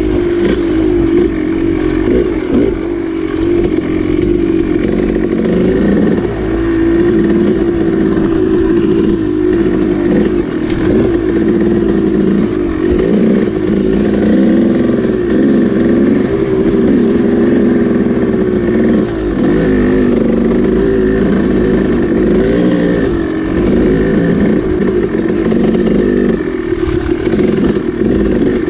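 KTM dirt bike engine running as the bike is ridden along a trail, its pitch repeatedly rising and falling with the throttle.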